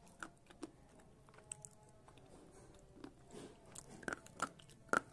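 Slate pencils bitten and chewed with the front teeth: sharp, irregular crunches and snaps, a few light ones at first and a louder cluster in the last two seconds.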